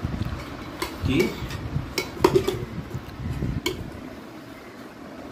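Metal spoon clinking against a steel pot and plates as rice and curry are served, about five sharp clinks in the first four seconds.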